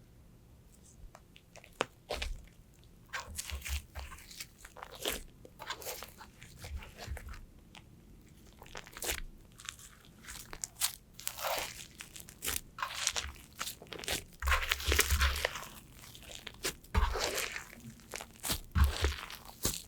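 Slime being squeezed and pressed by hand, giving irregular crackles and clicks that begin about two seconds in and come thicker in the second half.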